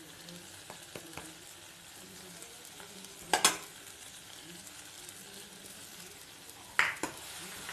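Small onions, tomatoes and freshly added spice powder frying in oil in a steel kadai, a low steady sizzle. There is a sharp clink about three and a half seconds in, and a steel spoon scrapes against the pan near the end as the masala is stirred.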